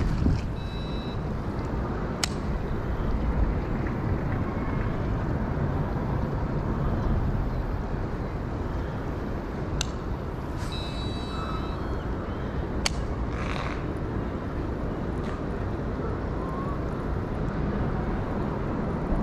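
Steady rushing of water at a river dam, with a few sharp clicks over it.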